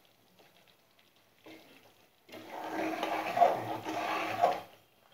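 A steel ladle stirring thick wheat halwa in an aluminium pan, the metal scraping and churning against the pan. It starts a little over two seconds in and stops shortly before the end.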